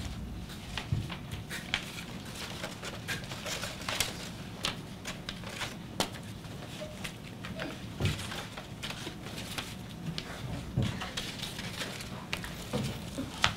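Quiet room noise with scattered light clicks, taps and rustles.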